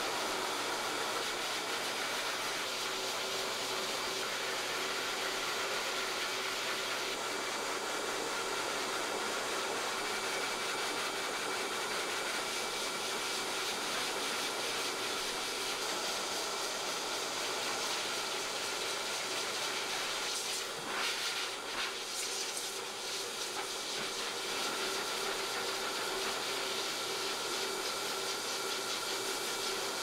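High-velocity pet dryer blowing steadily: rushing air with a faint whine. The sound wavers briefly about two-thirds of the way through.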